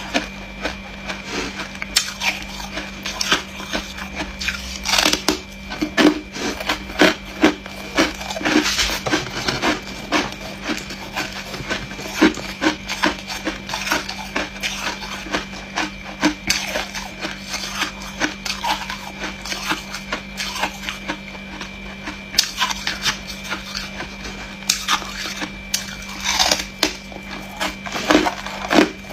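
Freezer frost and hard ice being bitten and chewed: irregular crisp crunches, coming in quick clusters, over a faint steady hum.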